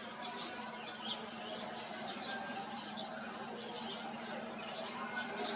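Small birds chirping, many short high chirps several times a second, over a steady low hum.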